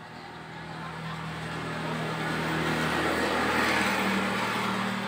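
A motor vehicle engine passing by, growing louder to a peak near the end and then easing off, its engine note stepping up in pitch partway through.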